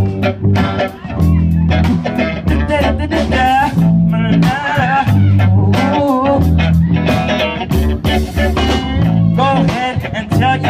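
Live funk band playing: drum kit, bass guitar and electric guitar in a steady groove, with the bass repeating a short riff.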